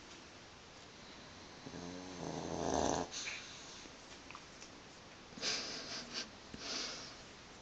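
Sleeping pug snoring: one long snore that swells for about a second, then a few short, noisy breaths about two seconds later.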